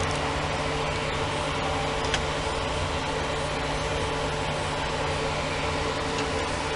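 Hoshizaki HRF-63ZT-ED(L) upright commercial freezer-refrigerator running, its inverter-controlled cooling unit giving a steady hum with fan noise, with one light click about two seconds in.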